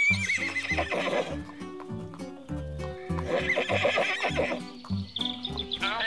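Horse whinnying twice, once at the start and again a little past the middle, over background music with a steady beat.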